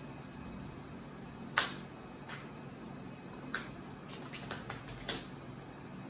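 Sharp clicks and taps of sleeved trading cards being handled and set down on playmats: one louder snap about a second and a half in, a few scattered clicks, then a quick run of them near the end, over a steady low room hum.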